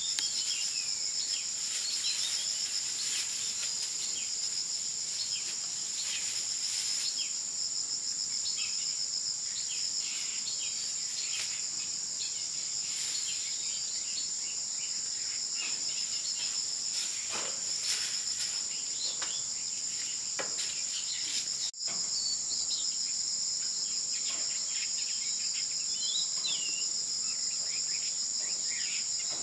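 A steady, high-pitched chorus of insects with short bird chirps over it, and a few sharp knocks scattered through the middle.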